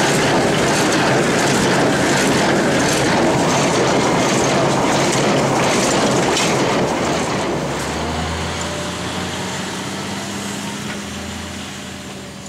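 Heavy farm harvesting machinery running with a loud clattering noise that fades away over the second half, leaving a low engine hum.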